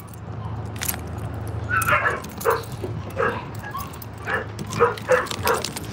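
A dog barking and yipping in a string of short, separate calls, starting about two seconds in.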